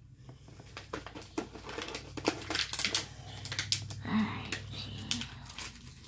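A quick, irregular run of light clicks and taps from small hard objects being handled, over a steady low hum.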